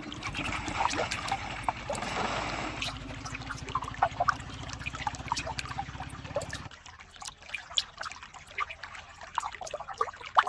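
Water trickling and dripping down a miniature diorama waterfall, with many small splashes. A low steady hum runs underneath and stops about two-thirds of the way in.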